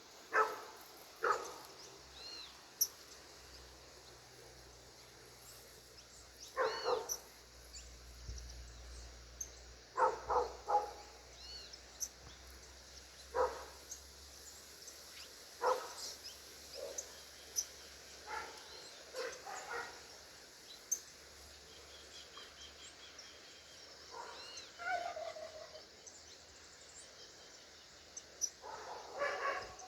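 A dog barking now and then, single barks and short runs of two or three, with small birds chirping in thin high notes between the barks.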